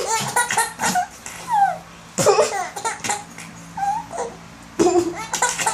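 Baby laughing and giggling in a string of short bursts, with a loud burst near the end. The laughter is set off by his mother's pretend coughs.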